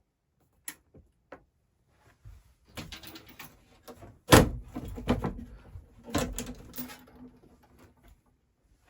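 A few light clicks, then a run of knocks and rattles with one loud thump about four seconds in.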